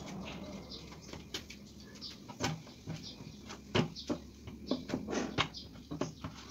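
Paint roller on an extension pole being dipped and worked in a bucket of latex primer: irregular knocks and clicks, a few a second.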